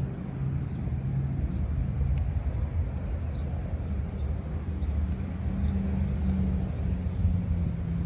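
Steady low rumble of a motor vehicle's engine running close by, with a few faint, high bird chirps over it.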